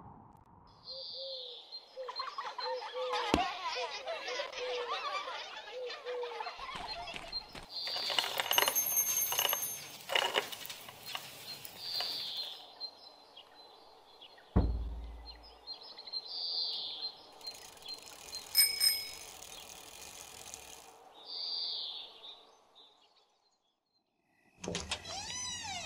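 Layered sound effects over a village ambience with birds chirping: children laughing, bells ringing twice, and a sudden deep, dull thud midway. Near the end it goes quiet, then night ambience with frogs calling begins.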